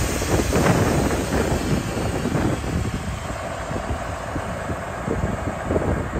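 Diesel engine of a 1998 Peterbilt 379 dump truck running steadily, with a faint steady whine from about three seconds in.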